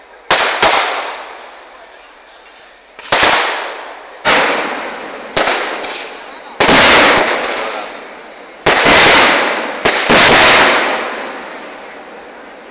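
Fireworks exploding: about nine sharp bangs, some in quick pairs and a few longer bursts lasting up to a second near the middle. Each fades away in an echo over a second or two.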